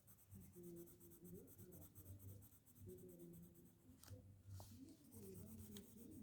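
Colour pencil scratching faintly on paper in quick back-and-forth shading strokes.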